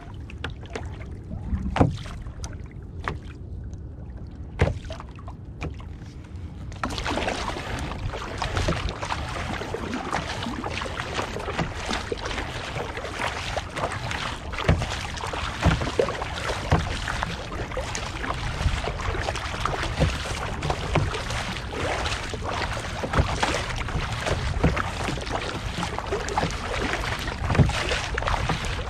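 Double-bladed kayak paddle strokes splashing in the sea, with water washing around the kayak. For the first several seconds it is quieter, with a few sharp knocks. After that the splashing is steady, about one stroke a second.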